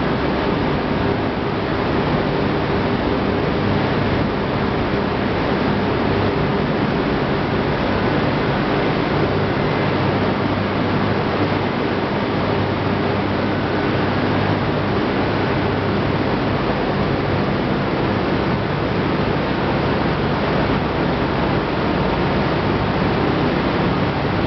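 Steady din of corn wet-milling machinery running in the germ-separation section of a starch plant: a constant rushing noise with a low motor hum under it.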